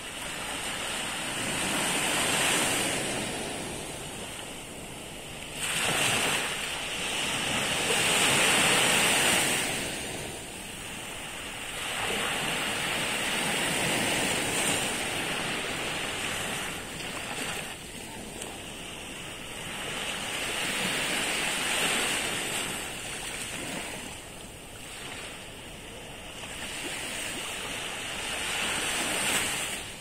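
Small sea waves breaking and washing up onto a sandy beach. The surf swells and falls back every few seconds.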